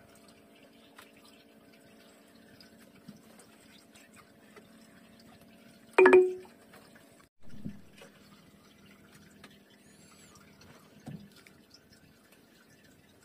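Wet longline being hauled hand over hand into a small boat, water dripping off the line, over a steady low hum. One brief loud sound about six seconds in, and smaller knocks about seven and a half and eleven seconds in.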